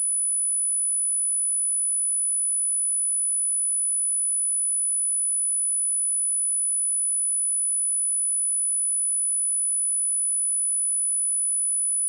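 Pure sine-wave test tone at 9945 Hz, a single high-pitched whistle held at a constant level, played to test speakers and shake dust and water out of them.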